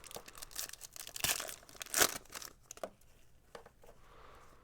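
A trading card pack wrapper being torn open and crinkled, in a run of rustling bursts that is loudest about two seconds in, then fades to quieter handling.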